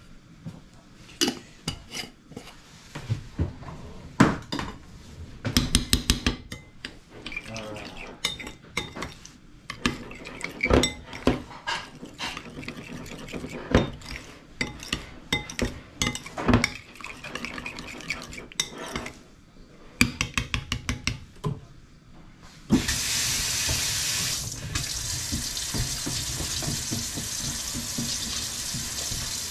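A metal teaspoon clinks and scrapes against a small ceramic bowl while stirring yogurt, with many irregular sharp clicks. About three quarters of the way through, a kitchen tap turns on suddenly and runs steadily into a stainless steel sink.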